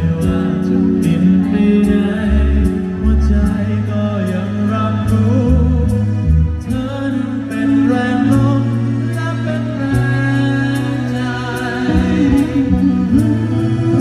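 A male singer singing a slow Thai song into a microphone over amplified music with bass and a steady drum beat.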